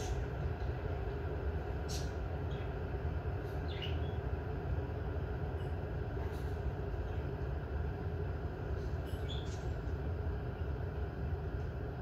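Glass electric kettle heating water toward the boil: a steady low rumble with a few faint clicks scattered through it.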